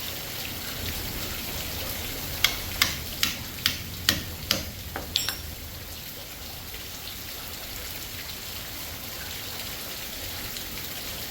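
Steady heavy rain on surfaces, with a quick run of about seven sharp knocks a couple of seconds in, roughly two a second, as the cooling fan is worked off an electric motor with hand tools.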